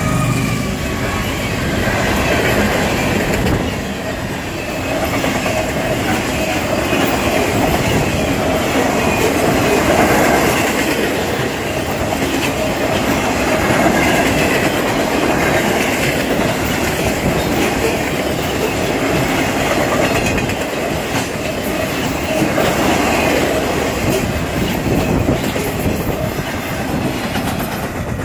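Freight train cars rolling past at close range: a steady rumble of steel wheels on rail with clickety-clack over the rail joints.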